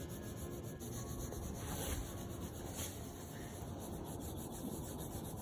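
Coloured pencil rubbing across paper in shading strokes, a steady soft scratching.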